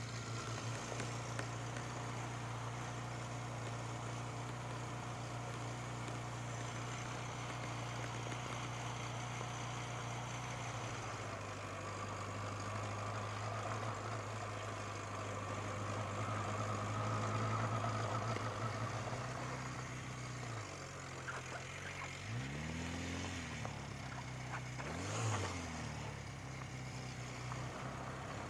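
Honda Nighthawk motorcycle engine running steadily, then revving up and back down twice near the end.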